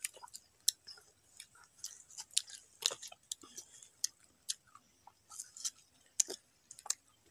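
Children biting and chewing crisp green mango: irregular wet crunches and mouth clicks, about two a second.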